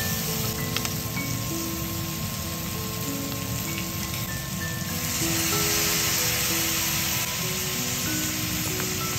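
Sliced onions and green peppers sizzling in a hot frying pan as they are stir-fried with a wooden spatula, the sizzle getting louder about five seconds in. Soft background music with a slow melody plays over it.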